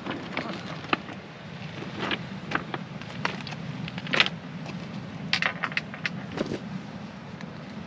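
Wind buffeting the microphone, with scattered sharp clicks and crunches from footsteps on shingle and a fishing rod being handled at a metal tripod rest. The loudest click comes about four seconds in.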